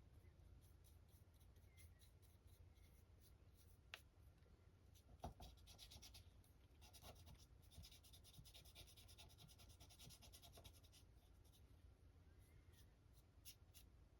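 Near silence with faint scratching and rubbing in the middle stretch and a few light clicks.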